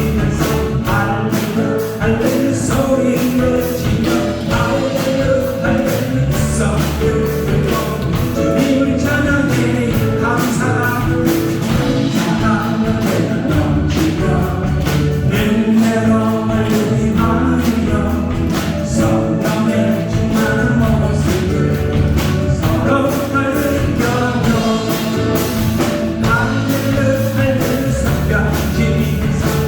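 A praise band leading a Korean worship song: voices singing together over drums with a steady beat, bass and keyboard or guitar.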